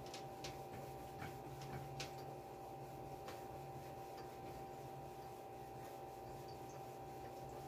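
Faint rubbing and a few light ticks as a steam iron is pushed over a polo shirt on an ironing board, the ticks mostly in the first few seconds, over a steady low hum.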